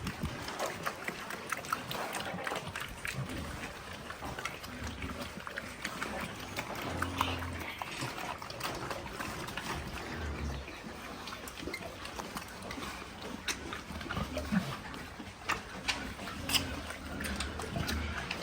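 Pigs grunting in short low bursts, scattered through the stretch, over a background of small clicks and rustling.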